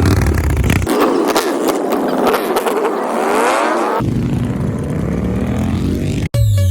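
Electronic intro music. The bass drops out for a few seconds while rising sweeping effects build, then the sound cuts out suddenly just after six seconds and a heavy bass-led beat comes in.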